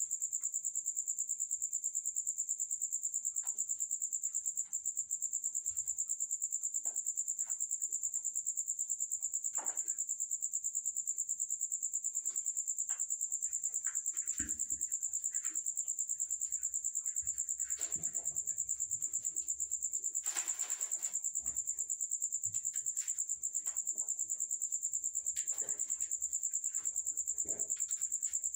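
Crickets chirping in a steady, high, very rapid trill with no break. Scattered faint rustles and knocks sit underneath, with a short burst of rustling about twenty seconds in.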